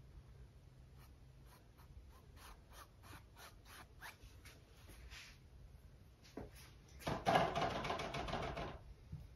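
Small paintbrush stroking acrylic paint onto a stretched canvas: a series of short, faint scratchy strokes. Near the end comes a louder rustling rub lasting nearly two seconds.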